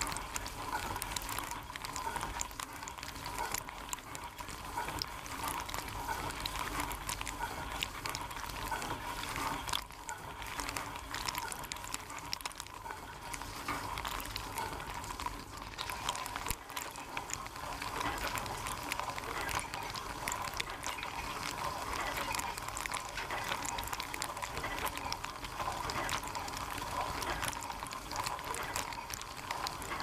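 Dishwasher running, heard from inside the wash tub: water spraying and splashing steadily, with a constant hum underneath.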